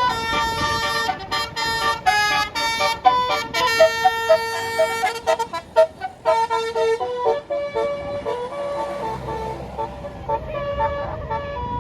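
Bus 'basuri' musical air horn playing a fast tune of short, stepped notes, the telolet melody; after about eight seconds the notes thin out and a low bus engine rumble comes up.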